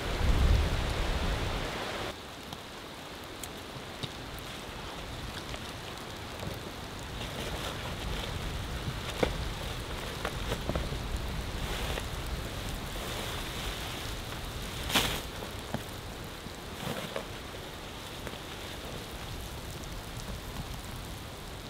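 Steady rain, with scattered louder drop hits and one sharp tap about fifteen seconds in. The sound drops abruptly in level about two seconds in.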